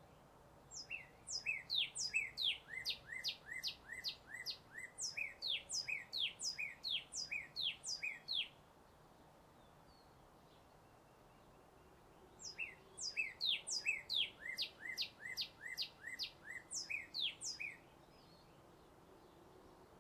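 A songbird singing two long bouts of quick, repeated down-slurred whistled notes, about three a second, with a pause of a few seconds between the bouts.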